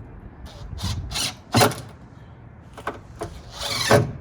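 A wooden stop being worked into place in a homemade plywood truck-bed toolbox: a series of scrapes and knocks, with a sharp knock about a second and a half in and a longer, louder scrape near the end.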